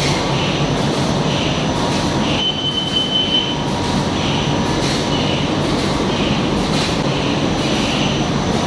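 Eight-colour rotogravure printing press running steadily: a loud, even mechanical noise with a soft swish repeating about once a second and a thin high whine. A short high tone sounds about two and a half seconds in.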